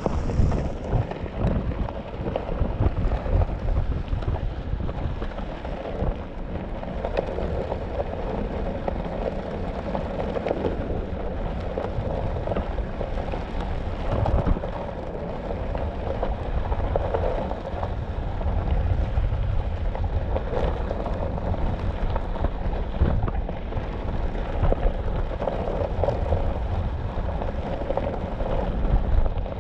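Onewheel's tyre rolling over desert gravel trail: a continuous crunching, crackling rush with a low rumble underneath.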